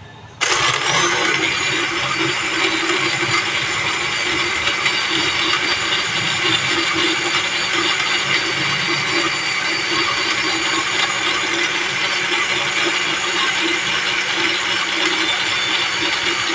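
Electric blender switched on about half a second in and running steadily, blending lemon, strawberry and honey into juice.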